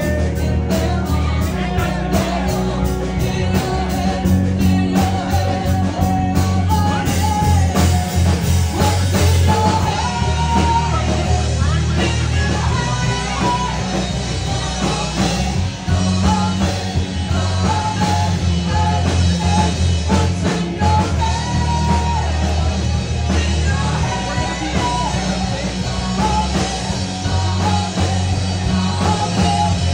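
Live rock band playing, a woman singing into a microphone over electric guitar, bass and a steady beat.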